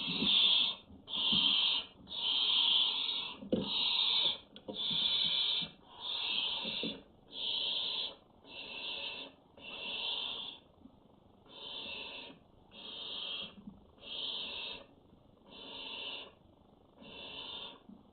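Barn owl chicks giving their rasping, hiss-like 'snoring' food-begging calls: a run of about fourteen calls, roughly one a second, growing gradually quieter.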